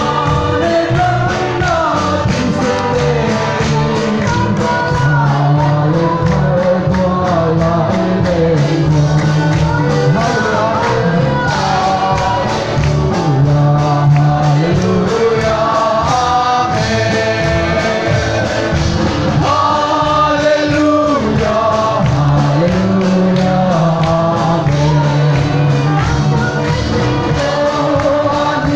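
A choir singing a gospel song together over instrumental accompaniment with a steady beat.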